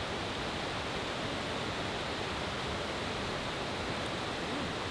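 River water rushing over rocks: a steady, even hiss with no breaks.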